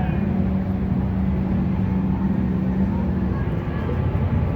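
Car engine held at steady high revs during a burnout, with the wheels spinning. The steady engine note drops away about three seconds in.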